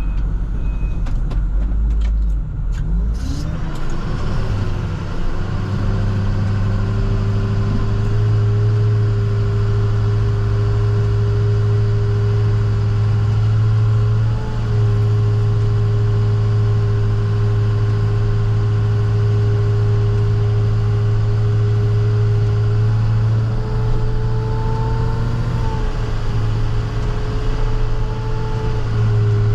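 Plow truck's engine heard from inside the cab, picking up speed about three seconds in, then running steadily at cruise. A few sharp clicks in the first couple of seconds.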